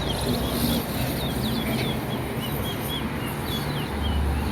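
Towa-towa (chestnut-bellied seed finch) singing in a string of short, quick chirps, about two or three a second, over a steady low background rumble.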